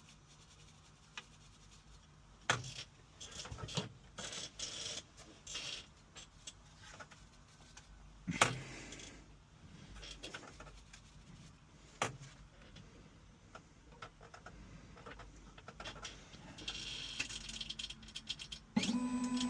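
Scattered light clicks and small metal knocks as a car key blade is flipped over and reclamped in a key-cutting machine, ready to cut its second side. The louder taps come about two and a half, eight and twelve seconds in.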